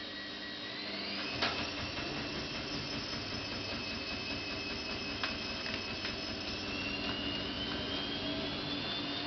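A steady machine-like whine over a hiss. Its pitch rises briefly about a second in, then climbs slowly again near the end, with a few faint knocks.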